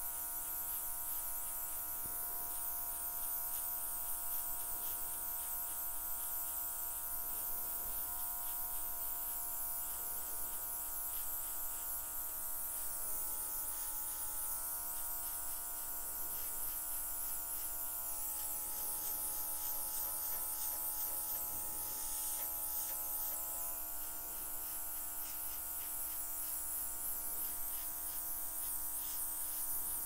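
Small battery-operated airbrush running steadily, its motor buzzing with a hiss of air, as it blows out wet acrylic paint on the canvas.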